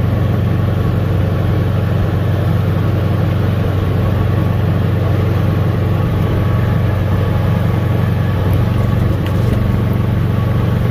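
Golf cart running along steadily, a loud, even rumble.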